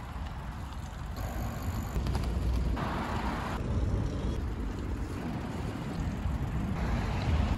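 Wind buffeting a phone's microphone during a bicycle ride, with tyre and road rumble underneath. The noise changes character abruptly a few times.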